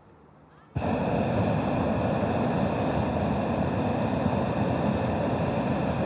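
Hot-air balloon's propane burner firing: it starts suddenly under a second in and runs on as a steady, loud rushing blast, heating the air in the envelope.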